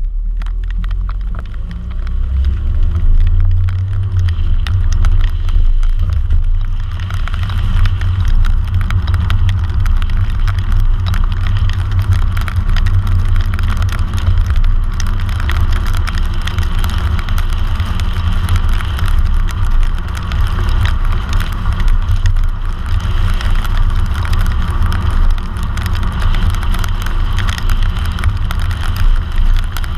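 A car driving on a rain-soaked road, heard from outside the car by its front wheel: a deep steady rumble, joined about seven seconds in by the hiss of the tyres throwing up spray as it gets up to speed.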